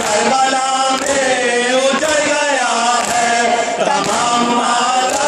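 Men chanting a Shia noha lament in unison through a microphone, with a sharp slap of chest-beating (matam) about once a second keeping the beat.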